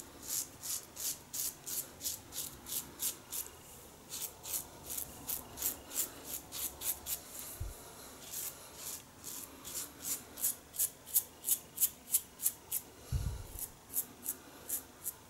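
1930s Gillette "New" long-comb double-edge safety razor scraping through lathered stubble on the neck in short strokes, about three a second, with a brief pause about four seconds in. It is an against-the-grain pass.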